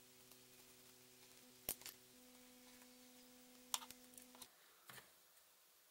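A few faint sharp clicks and taps of a screwdriver and fingers working among the wiring and carbon brush holders inside the opened plastic housing of an old Bosch mains hammer drill. Under them runs a faint steady hum that stops about four and a half seconds in.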